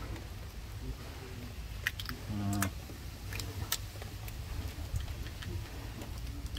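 Scattered light clicks and taps of live crabs being handled in a plastic basket, over a low steady rumble. A short voiced sound comes about two and a half seconds in.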